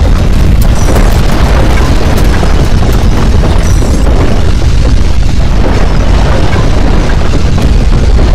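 Loud, continuous deep rumbling roar of an earthquake shaking sound effect, steady throughout.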